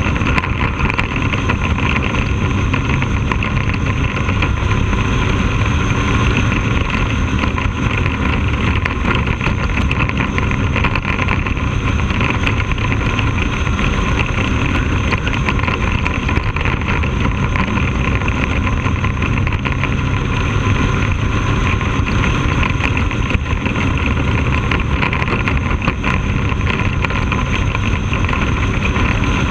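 Bandolero race car's single-cylinder Briggs & Stratton engine, heard from an onboard camera on the car, running hard at steady high revs while lapping a short oval.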